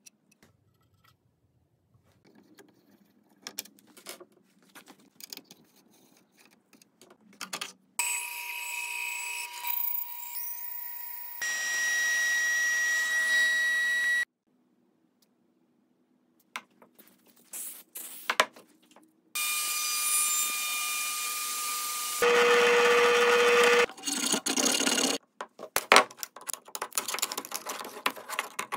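Woodworking shop sounds in quick cuts: light handling clicks and taps, then several short stretches of power tools running steadily, one of them a thickness planer feeding a board, and near the end sharp clicks and knocks as a chisel is worked into a wooden strip.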